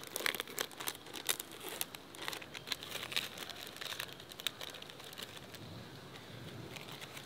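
Thin clear plastic wrapper crinkling as it is peeled off a cheese slice. A dense run of sharp crackles fills the first four seconds or so, then it goes fainter and sparser.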